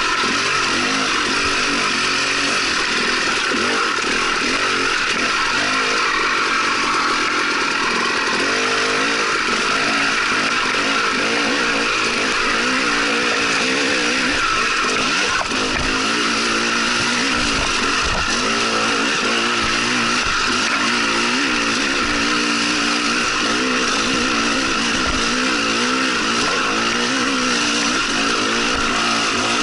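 Dirt bike engine running under load on a trail ride, its pitch rising and falling continually with the throttle, over constant wind and rolling noise.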